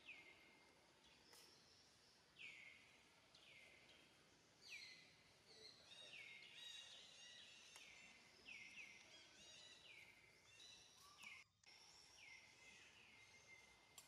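Faint bird calls: short chirps that sweep downward in pitch and level off, repeating about once a second, with several overlapping in the middle, over faint outdoor background hiss. The sound drops out briefly about eleven and a half seconds in.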